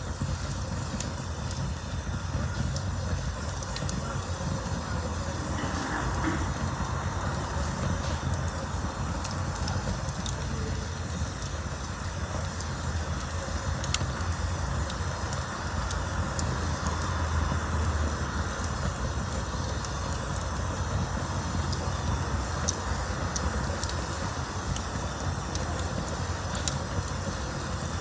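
Campfire burning: a steady low rush of flames with scattered sharp crackles, one louder pop about halfway through.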